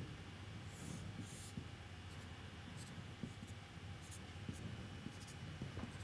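Faint strokes of a marker pen drawing lines on a whiteboard, the firmest ones about a second in.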